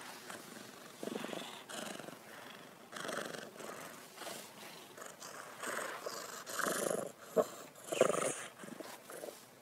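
Domestic cat purring, rising and falling in swells with its breathing, with two sharp clicks near the end.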